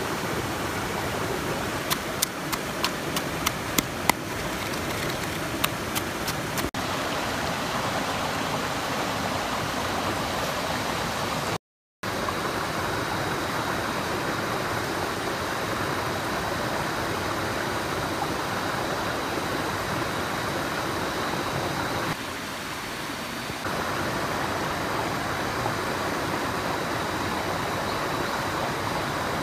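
Stream water rushing steadily, with a quick run of about ten sharp clicks in the first seven seconds. The sound drops out for an instant near the middle.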